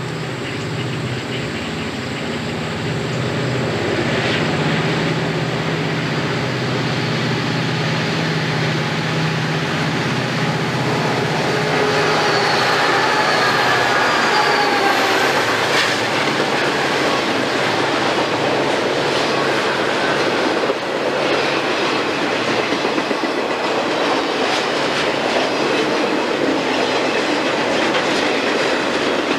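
Conrail diesel freight locomotives pulling hard under power, their engine drone growing louder as they approach and pass close by. Then the train's intermodal cars roll past with steady wheel clatter and thin metallic wheel squeals.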